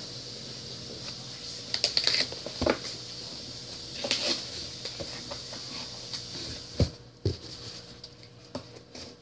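A box of paper quilling strips being handled: scattered taps, knocks and rustles, loudest about two, four and seven seconds in.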